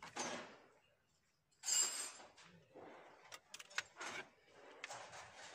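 Plastic steering-column parts and the clock spring of a car being handled by hand: irregular rustling, knocks and a few sharp clicks, the loudest burst about two seconds in.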